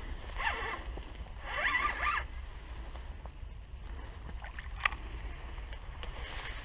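Shimano Technium spinning reel being cranked while a big zander is played on the line, whirring twice in short spells in the first two seconds, with a single sharp click near five seconds. A low wind rumble on the microphone runs underneath.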